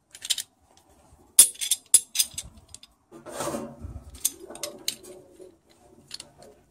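Hardened steel parts of a worn constant-velocity joint (balls, cage, inner race and outer housing) clicking and knocking together as the joint is worked back together by hand. A string of sharp metallic clicks, loudest about a second and a half in, with a brief low rumble of handling in the middle.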